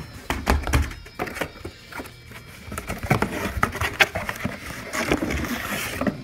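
Cardboard box and plastic air-cushion packaging rustling and knocking as a boom mic stand is pulled out by hand, with irregular clicks and thumps throughout.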